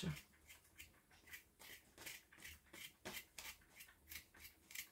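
A small kitchen knife scraping the skin off potatoes in quick, faint strokes, about three a second. The skin is coming off easily.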